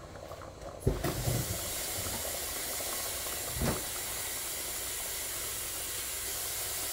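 Pot of water with rice in it boiling on an electric stove: a steady hiss that comes in suddenly about a second in, with a thump at the start and a short knock near the middle.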